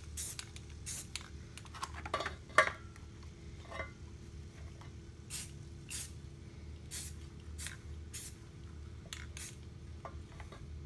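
Light, irregular metal clicks and short scrapes of a hand tool and small brake parts being handled and fitted, over a steady low hum.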